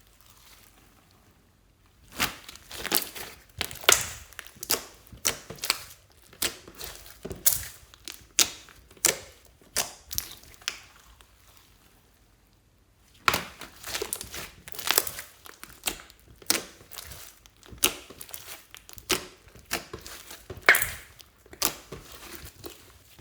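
Hands squishing and kneading slime: a run of wet, sticky clicks and pops at an uneven pace, with two short pauses.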